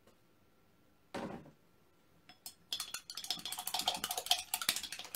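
Painting tools clinking and clattering against hard surfaces in quick, irregular taps, starting about two and a half seconds in, as the brush and palette knife are handled for cleaning. A short dull sound comes about a second in.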